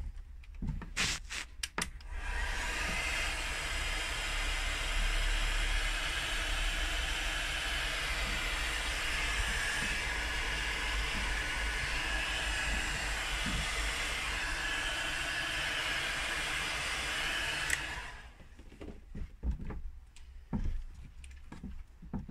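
Handheld electric heat gun blowing steadily while shrinking heat-shrink sleeving over cable terminals. It starts about two seconds in after a few clicks and cuts off suddenly about three-quarters of the way through, leaving light handling knocks.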